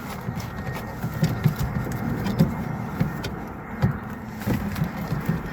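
Irregular knocks, clicks and rattles of metal and plastic parts being handled inside a car door as the door lock mechanism is worked loose.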